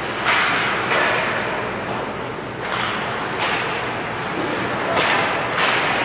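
Ice hockey play: about six sharp cracks, each with a short echo, as sticks, puck and players hit the ice and the boards during a scramble near the net.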